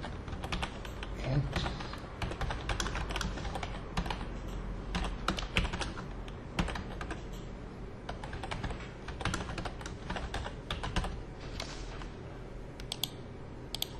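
Typing on a computer keyboard: key clicks in quick, irregular runs with short pauses between them.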